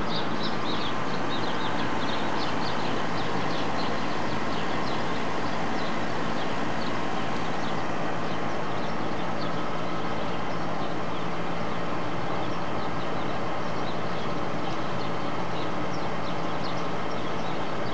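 Roof fan and large air conditioner running steadily: a constant whooshing noise with a low hum. Birds chirp on and off over it.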